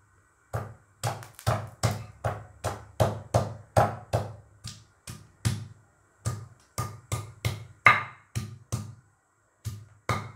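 Pestle pounding shallots in a small cobek (mortar), crushing them coarsely: a run of sharp knocks, about two or three a second, with a couple of short pauses.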